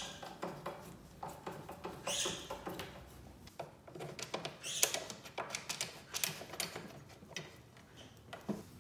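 Scattered light clicks and scrapes of metal assembly work: a hex key turning a bolt into the rowing machine's frame and a steel leg piece being handled against it, with a few brief rustles.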